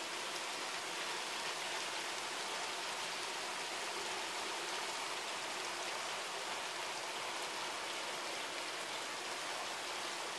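Steady rain falling on garden trees and roofs: an even, unbroken hiss.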